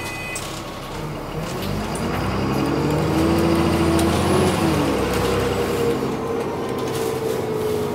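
Diesel engine of an Alexander Dennis Enviro400 double-decker bus, heard from inside the passenger saloon as the bus pulls away: the engine note rises, drops about halfway through at a gear change, then rises again.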